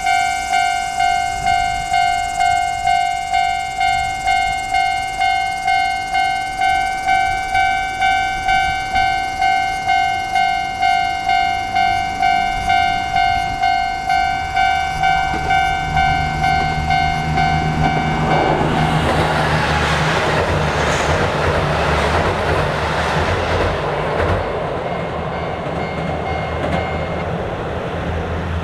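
Level-crossing warning bell ringing in a steady run of electronic dings, about one and a half a second. A train's low engine hum rises under it from about fifteen seconds in, and from about eighteen seconds the train passes over the crossing with a loud rushing rumble that covers the bell.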